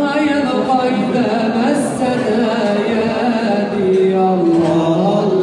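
A man singing an Arabic nasheed into a microphone, holding long notes that bend up and down in ornamented runs.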